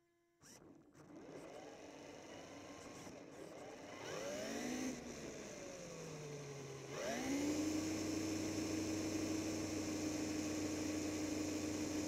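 Remote-control truck's electric motor and drivetrain whining, heard from on board as it drives. It starts about half a second in, rises and falls in pitch with speed, then about seven seconds in climbs quickly to a steady higher whine held at speed.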